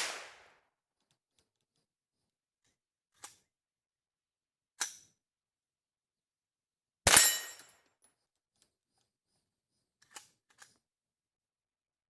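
A single .22 LR rifle shot from an AR-15 fitted with a CMMG .22 LR conversion kit about seven seconds in, with a brief ringing tail. Fainter sharp cracks come around three and five seconds in and twice near the end.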